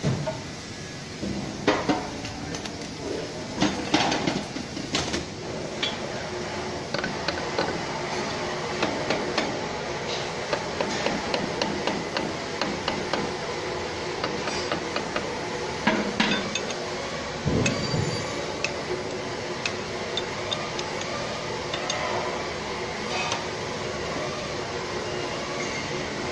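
Irregular metal knocks and clinks of a stationary blade being tapped into position and bolted down in a machine's steel cutting chamber, with a few louder knocks among many lighter taps, over a steady low hum.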